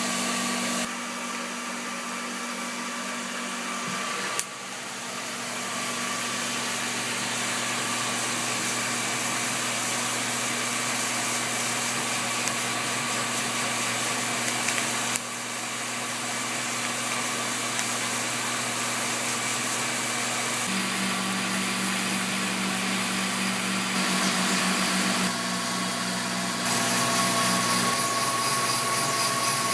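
Hand-made air coffee roaster running: a steady blower hiss with a low hum. The sound shifts suddenly in level and tone a few times, with a sharp click about four seconds in.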